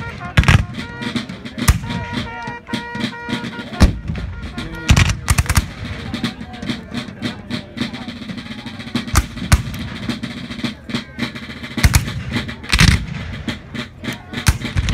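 Black-powder musket fire from a reenactment line: scattered single shots, a few seconds apart and sometimes in quick pairs. For the first few seconds a fife and drum play a marching tune under the shots.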